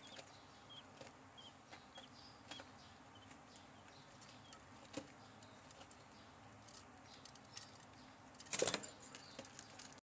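Faint, short high cheeps from budgerigars, a few in the first three seconds, over soft scattered clicks. Near the end there is a brief loud rustle.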